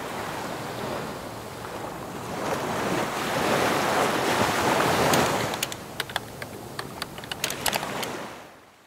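Surf sound effect: waves rushing in, swelling to their loudest about four to five seconds in and then fading. A quick run of sharp clicks like keyboard typing comes in over the last few seconds.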